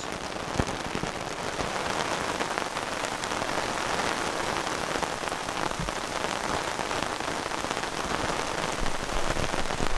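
Heavy rain falling steadily, a dense patter of many drops, in one of the short, intense bursts of a passing shower.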